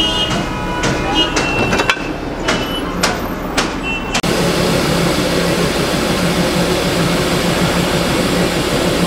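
Darjeeling Himalayan Railway coal-fired steam locomotive standing in steam. Sharp metallic knocks with a ringing tone come about every half second for the first four seconds, then a steady loud rush of noise with a low hum takes over.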